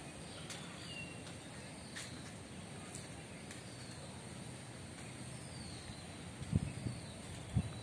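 Outdoor park ambience: a steady low background noise with a few faint bird chirps, a steady high tone and some light ticks. Two low thumps stand out near the end.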